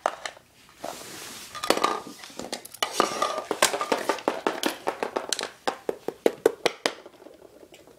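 Small plastic toys and toy accessories being handled, clicking and clattering against each other and the hardwood floor in a quick, irregular run of taps.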